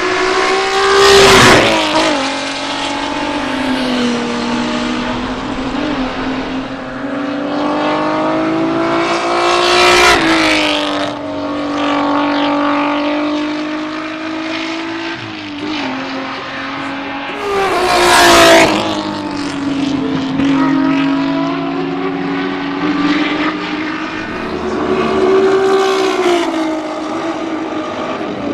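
Alfa Romeo GTV6 race car's V6 engine running hard on track, passing close by several times. The engine note climbs under acceleration and drops as the car goes past. The loudest passes come about a second in, around ten seconds and around eighteen seconds.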